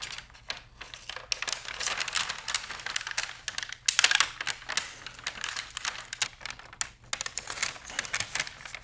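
A sheet of old lighting gel being cut with scissors and handled, the thin plastic film crinkling with a quick, irregular run of crisp clicks and snips.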